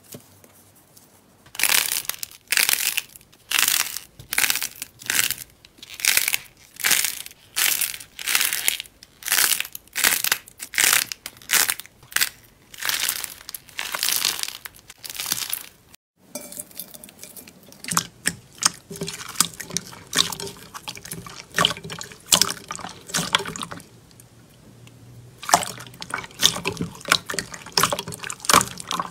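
Slime squeezed and kneaded by hand, giving rhythmic squishes about two a second. About halfway through, clear slime pressed and stretched in a glass bowl gives softer wet squelches and small clicks.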